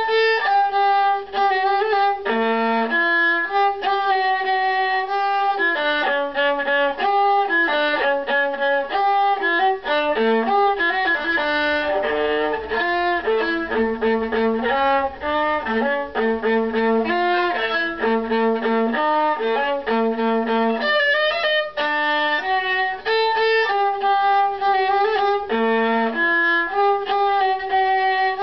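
Solo viola played with the bow, an unaccompanied melody of sustained notes with a quicker run of short notes near the middle.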